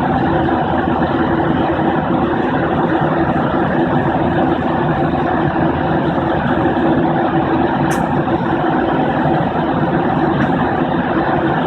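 Steady drone of an airplane cabin in flight: engines and rushing air, with a few constant humming tones under the noise. A brief light tick comes about eight seconds in.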